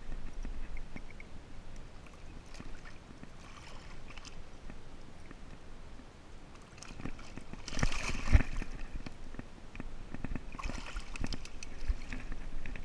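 Water sloshing and wet weeds rustling as a large channel catfish is hauled by hand out of the weedy shallows of a pond, with a louder splash and thump about eight seconds in.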